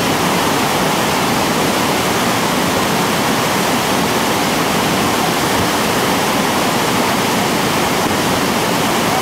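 Whitewater rapid rushing, a loud, steady wash of churning water.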